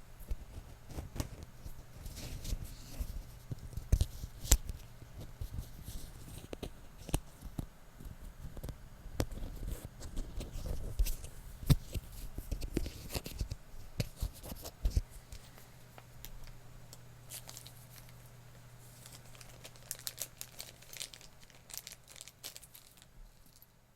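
Close-miked crinkling and crackling of material handled right at the microphone, irregular and dense for the first fifteen seconds or so, then sparser and lighter. A faint steady low hum lies underneath.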